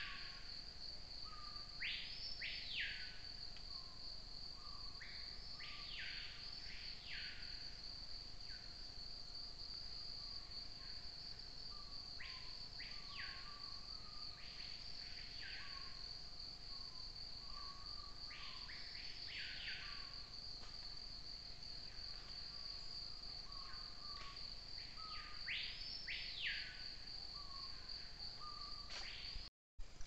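Rainforest insect and bird chorus. One insect gives a continuous high, steady trill. Over it a bird repeats short arched whistled notes, usually in twos or threes, every few seconds, with soft lower notes beneath. The sound cuts out briefly near the end.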